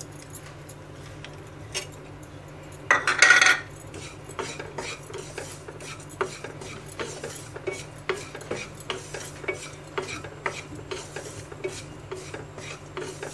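Wooden spatula stirring dry roasted vermicelli and chopped nuts in a nonstick kadhai, with irregular light scrapes and clicks against the pan. A louder half-second burst comes about three seconds in.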